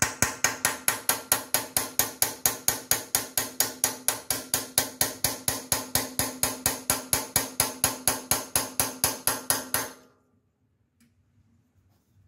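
Hammer striking a steel punch in rapid, even, ringing blows, about five a second, driving a valve guide that has worked out of the aluminum cylinder head of a Briggs and Stratton engine back into place. The blows stop about ten seconds in.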